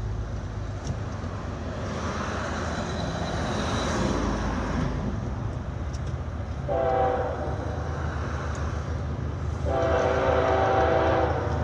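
Diesel freight locomotive's air horn sounding two blasts, the first about a second long a little past halfway, the second about a second and a half long near the end, over a steady low rumble.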